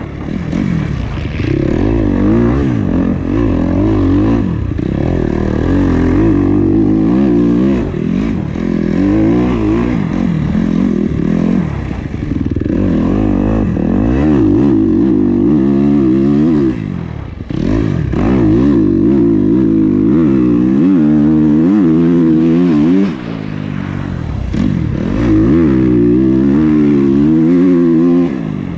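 2021 Kawasaki KX250's four-stroke single-cylinder engine heard from on board as it is ridden hard, revving up and dropping again and again through the gears. The throttle is shut off briefly twice in the second half.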